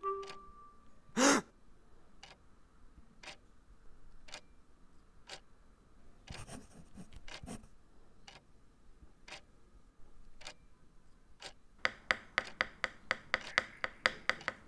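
A clock ticking about once a second, then, near the end, a pencil tapped rapidly on a desk, about six taps a second. One brief louder sound about a second in.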